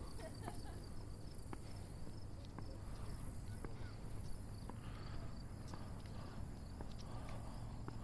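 Insects chirring steadily in a high, pulsing drone, with a few faint footstep ticks on pavement.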